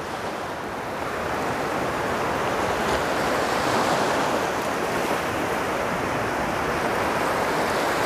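Sea surf: small waves breaking and washing in, a steady rushing hiss that swells slightly over the first few seconds.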